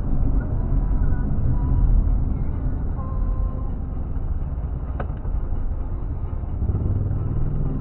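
A car's engine and road rumble heard inside the cabin through a dash camera's built-in microphone, steady and low-pitched as the car moves slowly in traffic. It sounds dull and narrow, with no high frequencies. There is a single click about five seconds in.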